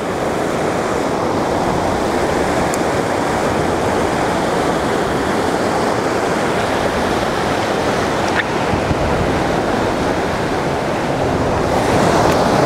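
Steady rush of the Smith River's flowing water.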